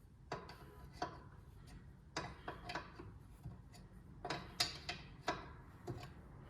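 Ratchet wrench clicking in short runs on the backswing while a nylock nut is wound off a ball joint stud, with sharp metal clicks and taps about once or twice a second.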